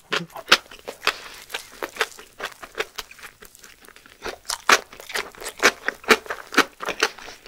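Close-miked crackling and crinkling of a small seaweed-wrapped gimbap roll being handled and bitten into, with mouth and chewing sounds. It is a quick run of short, crisp crackles that gets busier in the second half.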